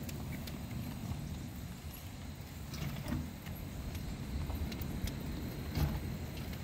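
Ride-on scale freight cars rolling slowly on steel track: a steady low rumble from the wheels, with scattered metallic clicks and clanks, the sharpest about three seconds in and again near the end.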